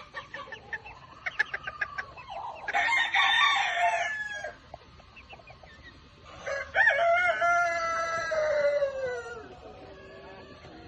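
Chickens clucking in quick short notes, then a rooster crowing twice, the second crow long and dropping in pitch at the end.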